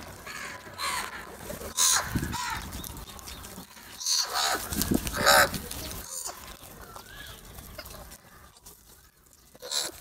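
A flock of house crows cawing in harsh, scattered calls, loudest about two seconds in and again around five seconds. A lull follows, then one more caw at the very end.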